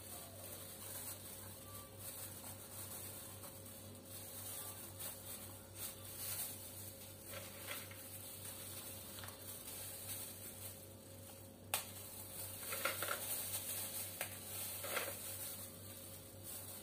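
Faint handling sounds of plastic-gloved hands placing graham crackers into a plastic container: soft rustles and light taps, with one sharp click about twelve seconds in. A steady low hum runs underneath.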